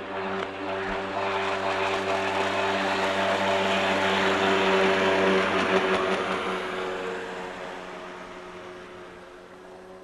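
Jet ski running at speed across the water, its engine drone steady in pitch under a hiss of water and spray. It grows louder to a peak about halfway through, then fades away as it moves off.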